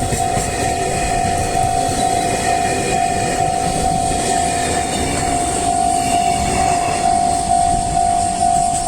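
A Japanese level crossing alarm rings in steady repeated dings. Under it a train rumbles across the crossing.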